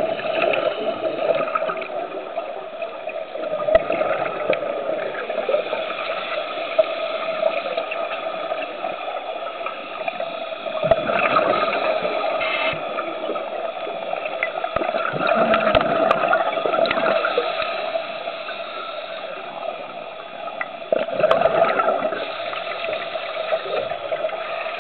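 Underwater sound of scuba divers breathing through regulators: rushing, gurgling bursts of exhaled bubbles, loudest about eleven seconds in, around sixteen seconds and again near twenty-two seconds, over a steady hum.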